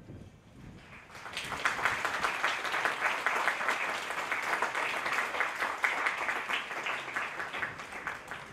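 Spectators applauding, the clapping swelling about a second in and dying down near the end.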